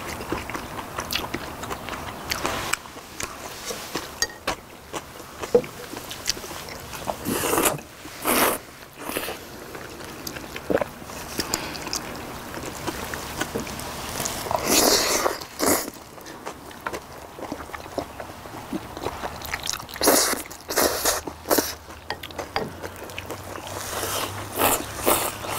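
Close-miked eating of spicy raw-fish noodles: wet chewing and small clicks of chopsticks on bowls, broken every few seconds by louder noodle slurps lasting up to about a second.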